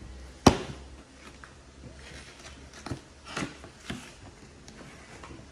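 A cardboard model box being opened and handled with gloved hands. There is a sharp knock about half a second in, then soft scrapes and rustles of cardboard and plastic packaging sliding, a few seconds later.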